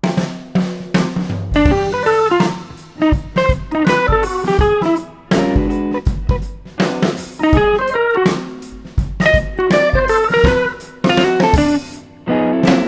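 Background music: plucked guitar melody over a drum kit beat.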